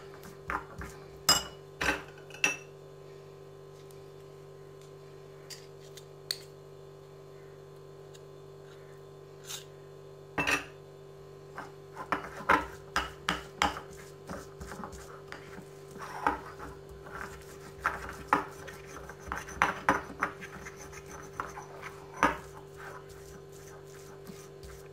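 Metal spoon stirring and scraping a thick honey-and-coffee paste in a glass bowl, with clinks of the spoon against the glass. A few strokes come near the start, it goes sparse for several seconds, then the stirring gets busier from about ten seconds in. A steady low hum runs underneath.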